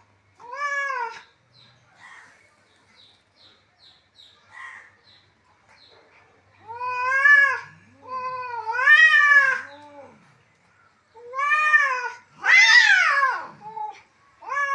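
Cats in a fight, calling back and forth in repeated drawn-out meows that rise and fall in pitch. A deeper second voice joins in partway through, and softer short chirps fill a stretch in the middle. The loudest and longest call comes near the end and drops in pitch.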